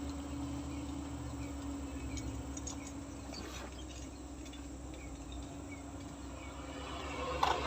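Heavy construction machine's diesel engine idling, a low, even, pulsing rumble with a steady hum over it that fades about three seconds in.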